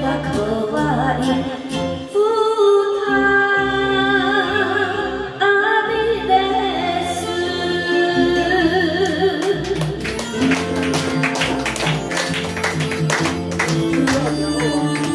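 A woman singing a Japanese enka song into a karaoke microphone with a wavering vibrato over a backing track. About ten seconds in, her voice stops and the backing track plays an instrumental passage with a quick rhythmic beat.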